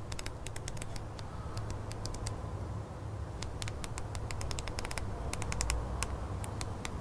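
A stack of photo prints riffled with the thumb, the paper edges flicking in quick, uneven runs of clicks, over a low steady hum.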